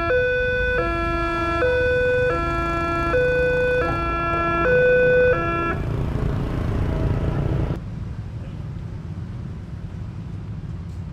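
Railway level-crossing warning alarm sounding its two-tone electronic chime, alternating high and low about every 0.7 s. It stops about six seconds in as the train clears and the barriers go up. After that there is a low rumble of road traffic, with motorcycles moving off across the tracks.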